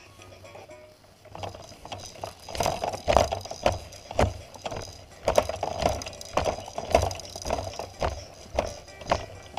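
Fisher-Price baby bouncer rattling and knocking as it bounces, in a steady rhythm of about two knocks a second that starts about a second in.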